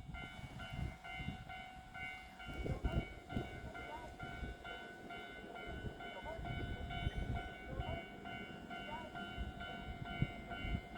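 An electronic warning bell at a railway station, ringing evenly about twice a second over a low rumble of rail noise.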